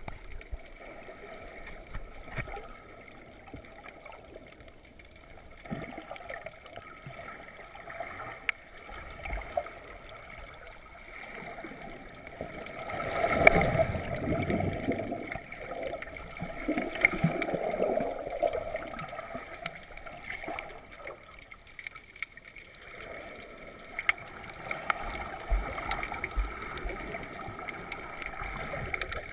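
Underwater sound heard through an action camera's waterproof housing: a muffled wash of moving water with scattered small clicks and knocks. About halfway through it swells louder for several seconds with a rush of bubbles.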